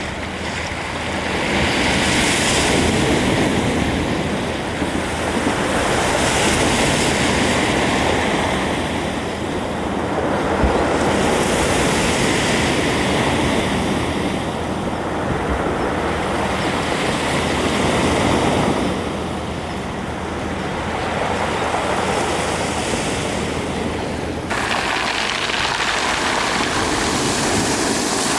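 Sea waves breaking and washing on the shore, the surf noise swelling and easing every few seconds.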